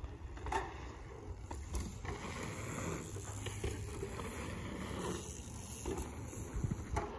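Wind rumbling on the phone microphone, with mountain bike tyres rolling over packed dirt jumps and a few light knocks.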